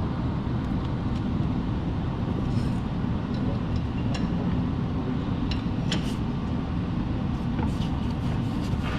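A steady low rumble of background noise, with a few light metallic clinks of hand tools scattered through it.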